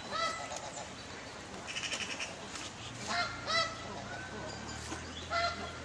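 Grey heron and otter fighting: a run of short, high calls, about six in all, one held longer about four and a half seconds in.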